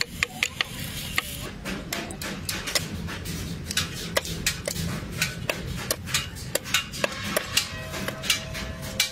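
Tools tapping and knocking on engine parts, sharp irregular hits about two or three a second, over a steady low hum.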